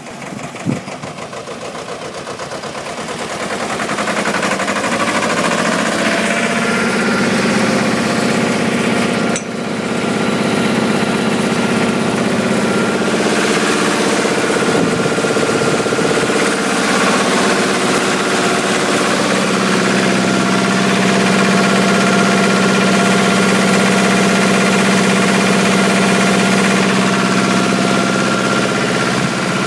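Deutz two-cylinder diesel engine of a trailer-mounted welding generator running steadily, growing louder over the first few seconds.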